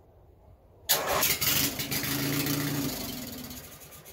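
Racing mower's engine cranked by its new electric starter: it starts suddenly about a second in, runs briefly at a steady pitch, then slows and dies away. It will not keep running on its own because the fuel pump doesn't work.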